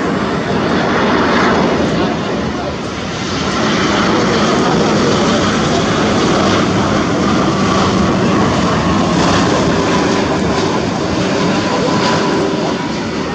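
Jet engines of a Boeing 787-10 airliner on final approach with gear down: a steady jet noise with a faint steady whine over it.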